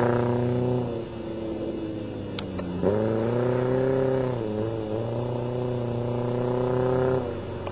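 Mazda Protege's 1.6-litre four-cylinder engine with automatic transmission, held at a steady high pitch under throttle. It eases off about a second in, comes back on with a rising note near three seconds in, holds, and falls away again shortly before the end.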